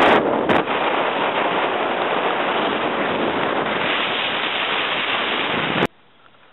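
Wind buffeting the microphone of a camera held out of a car window at highway speed, a steady rush of noise that cuts off suddenly near the end.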